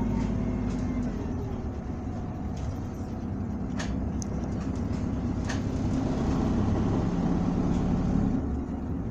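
Running sound inside a 2019 Isuzu Erga city bus under way: its four-cylinder turbo-diesel and drivetrain drone steadily. The engine note eases off a couple of seconds in and builds again from about six seconds in, with two light clicks in between.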